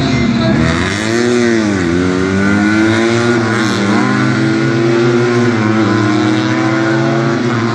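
Classic car's engine revving up and easing off twice in quick succession, then running at a steadier pitch, over a steady low hum.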